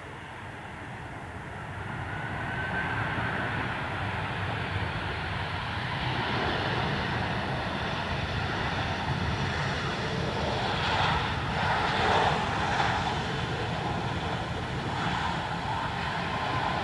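Jet roar from an Airbus A321's CFM56 engines during the landing roll, just after touchdown. It builds over the first few seconds and stays loud, swelling most strongly about ten to thirteen seconds in, as the engines run up in reverse thrust to slow the aircraft.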